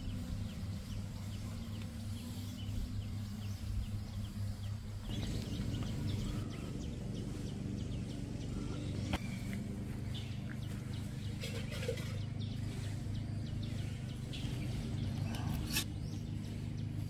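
Outdoor ambience: scattered faint bird chirps over a steady low hum, with the background shifting about five seconds in.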